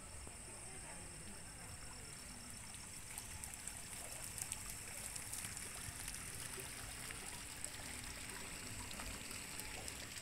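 Water trickling steadily, with faint scattered ticks from about three seconds in.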